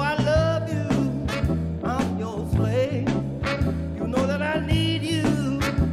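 Background music with a steady beat, a bass line and a bending lead melody.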